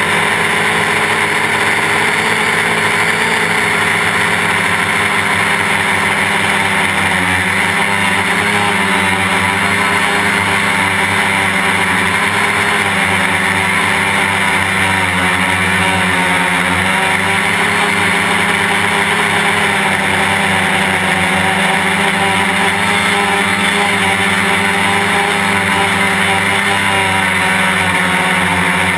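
Quadcopter's electric motors and propellers buzzing steadily at close range from the onboard camera, the pitch wavering slightly as the throttle changes.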